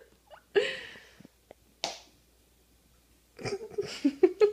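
A person's breathy exhale about half a second in, a short sharp hiss near two seconds, then a quick run of brief voiced sounds near the end.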